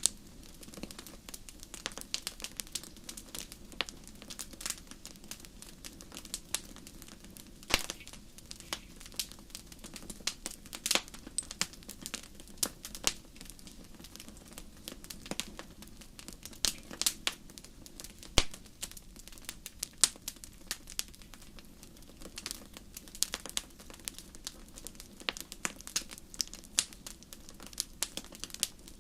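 Wood fire in a fireplace crackling, with irregular sharp pops and snaps of varying loudness over a steady low rush.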